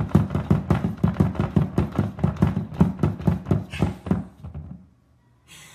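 Toilet paper roll knocking and rattling on its wall-mounted holder as a cat paws at it, a rapid, even run of knocks at about five or six a second that dies away about four to five seconds in.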